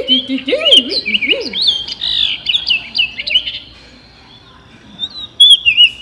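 Recorded orchard oriole song played from a small handheld bird-call speaker held to the microphone: a quick, varied run of whistled and chattering notes. It pauses about three and a half seconds in, then a short final burst comes near the end.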